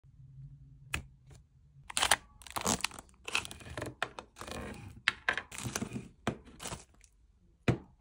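Clear plastic wrapping crinkling and tearing as it is pulled off a bundle of small items, in a dense run of rustles. A sharp knock near the end as a piece is set down on a wooden table.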